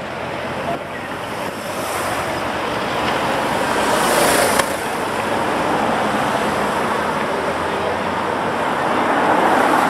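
Road traffic noise as cars and motorcycles of a cycling race's lead convoy pass close by, with wind on the microphone. The noise swells as a car goes past about four seconds in, and again near the end.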